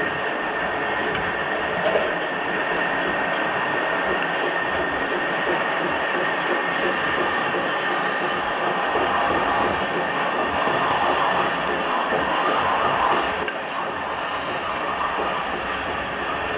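Lathe running during a turning operation: a steady metal-machining noise. A thin, high-pitched whine joins about seven seconds in and holds to the end.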